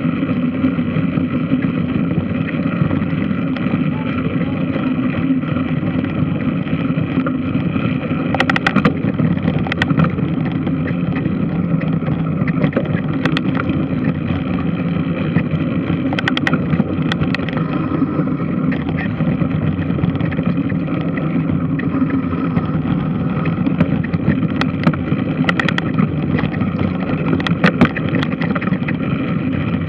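Large washing machine running: a steady mechanical drone with sharp knocks or clanks at irregular intervals, a few seconds apart.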